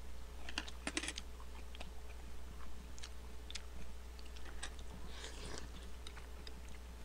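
Faint eating sounds: scattered light clicks of a spoon and chopsticks against dishes, with chewing and a brief scraping rustle about five seconds in. A low steady hum runs underneath.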